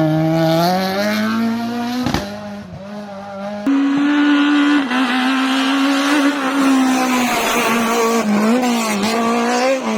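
Rally car engines at high revs on a closed stage. The first climbs in pitch under acceleration, with a sharp crack about two seconds in, and then fades. The sound jumps abruptly to a second, louder car held at high revs, its note dipping briefly now and then. It cuts off abruptly at the end.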